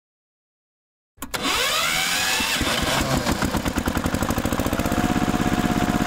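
An engine starting about a second in, its pitch sweeping up as it catches, then running with a fast, even chug.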